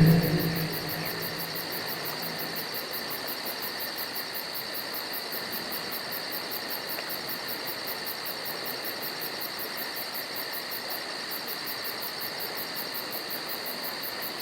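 Night insect chorus of crickets chirping steadily, with a fast, even high-pitched pulsing of about three to four chirps a second over a constant hiss.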